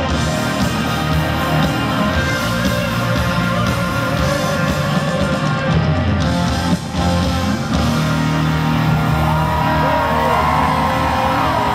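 Live rock band playing loud, amplified music through a concert PA, heard from the audience: electric guitar over drums and bass, with sliding, bending guitar notes near the end.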